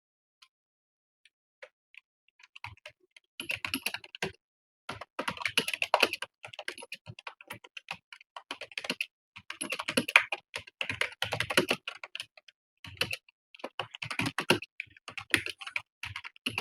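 Fast typing on a computer keyboard, in bursts of rapid keystrokes with short pauses between them. It starts about three and a half seconds in, after a near-silent opening with only a few stray clicks.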